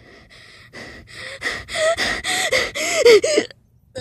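A person gasping in quick rhythmic breaths, about five a second, faint at first and growing loud from about a second in, with voiced, wavering cries in the later ones before stopping abruptly: acted, exaggerated sobbing over a dying character.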